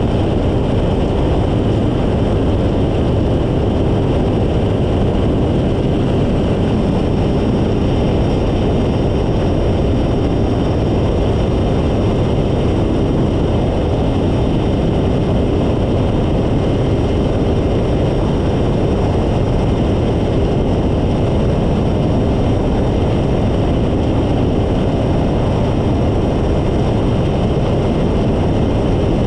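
Phantom ultralight's engine and propeller running steadily in flight, with wind rushing over the tail-mounted microphone.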